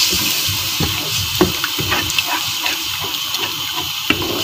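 Biryani masala with yogurt sizzling steadily in a metal pot as it is stirred with a spatula, with scattered light scrapes and taps of the spatula against the pot.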